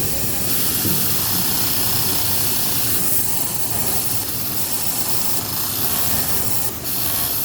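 Pegasus M952 industrial overlock sewing machine running at high speed: a steady, hiss-like whir with a low rattle underneath. It grows brighter about half a second in and drops briefly near the end.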